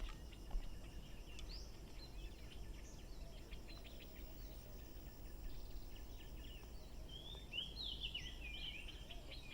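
Faint outdoor ambience of birds chirping, with a quick run of rising and falling notes near the end, over a steady low hum.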